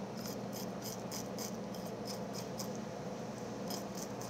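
Kitchen knife scraping the scales off small horse mackerel on a plastic cutting board: quick, short scrapes at about three a second, with a brief pause about three seconds in.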